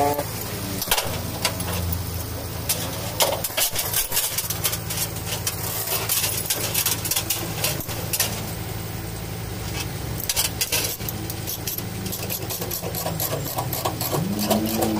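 Steel tie-down chains clinking and clanking as they are hooked and pulled tight around a road roller's wheel on a flatbed tow truck's steel deck, over a steady idling diesel engine. Near the end an engine note rises and holds.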